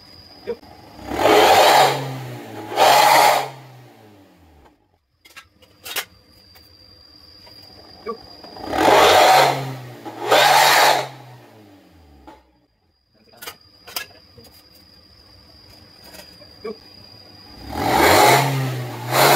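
Toyota Avanza Veloz automatic engine revved through an exhaust fitted with a bolt-on growl insert ('suos ngorok'). It gives quick throttle blips in three pairs, about eight seconds apart, each blip rising in pitch and falling back to idle.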